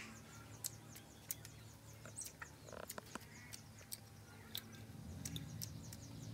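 Spoon and fork clicking against ceramic plates as someone eats, in scattered sharp taps. Faint bird chirps repeat in the background.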